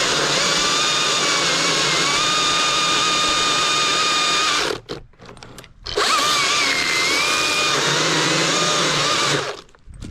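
Husqvarna chainsaw running at high revs in two long runs, its pitch sagging briefly now and then as it cuts into wood. It drops away for about a second near the middle and stops shortly before the end.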